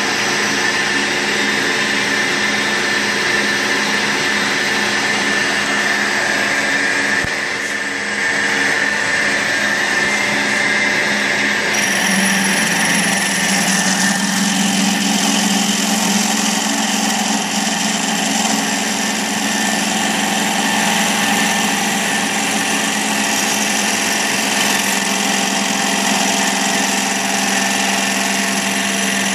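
Old milling machine running at about 1,250 RPM with a 1-1/8-inch hole saw cutting into aluminum tube to cope it: a steady machine hum whose tone shifts and brightens about twelve seconds in.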